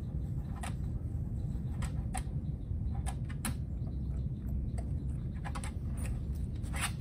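Steady low rumble of outdoor background noise, with scattered short clicks or ticks every second or so.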